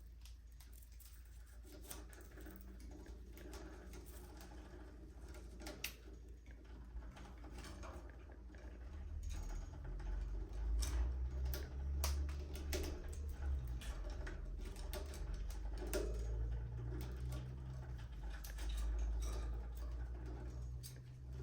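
Budgies in an aviary moving about, with scattered sharp clicks and scratching throughout. A low rumble grows louder from about nine seconds in.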